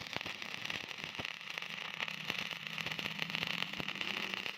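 Electric arc welding: a steady crackling sizzle of the arc with a constant low hum running under it.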